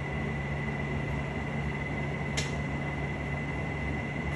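Steady low hum and hiss of room noise, with a single short click about halfway through.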